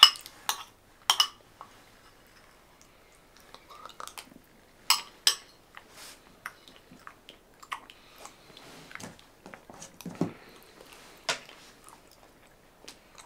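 Chewing food close to the microphone, with sharp clinks of cutlery against a dish now and then: a few at the start, two about five seconds in, and one near the end.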